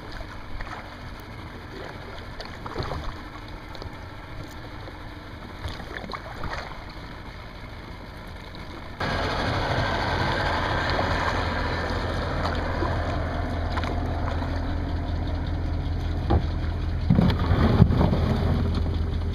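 Jackson kayak being paddled in to a boat ramp: paddle splashes and water slapping the hull over a steady rush of noise that becomes suddenly much louder about halfway through. Near the end the plastic hull scrapes and knocks up onto the gravel and rocks of the shore.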